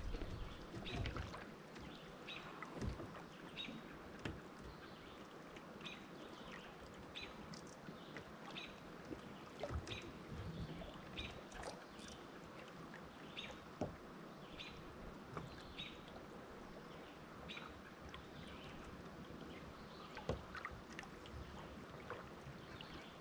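Kayak moving along a river: faint water sounds along the hull, with short high chirps repeating about every half second to a second and a few soft knocks.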